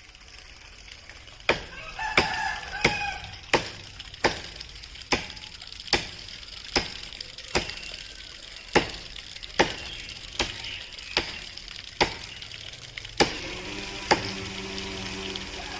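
Steady, evenly paced chopping strikes into wood, about one every 0.8 seconds, some sixteen in all, stopping near the end.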